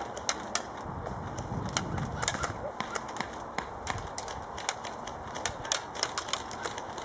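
Airsoft guns firing in a skirmish: an irregular scatter of sharp snapping shots, a few each second, from more than one gun.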